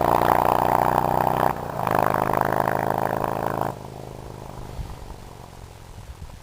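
S&S 100 cubic inch V-twin engine of a WAKAN motorcycle held at raised revs, dipping briefly about a second and a half in. About four seconds in it falls away to a much quieter, uneven low rumble.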